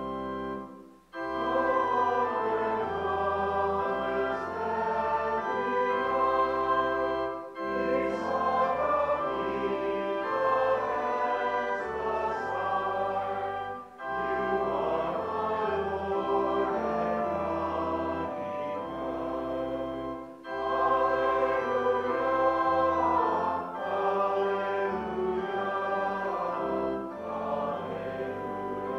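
A hymn sung by a group of voices with organ accompaniment, in phrases about six or seven seconds long with brief breaks between them.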